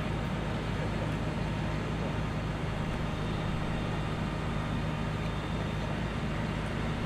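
Large mobile crane's diesel engine running steadily under load while hoisting a steam locomotive, a constant low drone.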